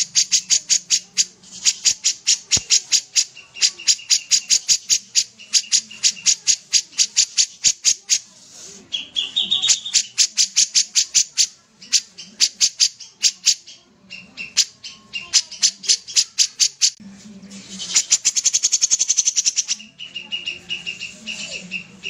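Caged kapas tembak bulbul singing in long rapid-fire runs of sharp, high repeated notes, about seven a second, with a few short breaks between the runs.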